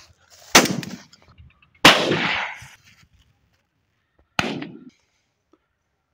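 Three 12-bore shotgun shots, each a sharp crack with a short echoing tail. The second comes about a second and a half after the first, and the third about two and a half seconds after that.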